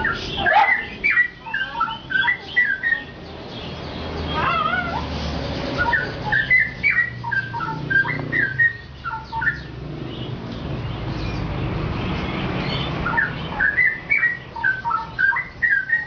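Straw-headed bulbul (cucak rowo) singing in bursts of quick, liquid whistled phrases, three long runs of a few seconds each with a short phrase between the first two, over a steady low background rumble.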